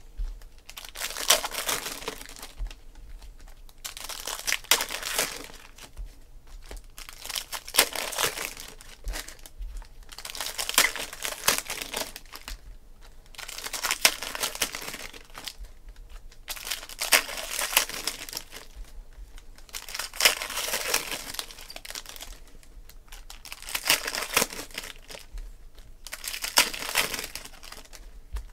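Foil wrappers of Panini Prizm football card packs crinkling and tearing as the packs are opened one after another, in short spells about every two seconds.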